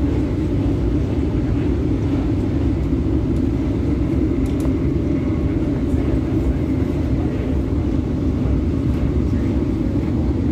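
Cabin running noise of an MTR K-Train electric multiple unit travelling at speed: a steady, loud rumble of wheels on rail and running gear, with no change in pace or level.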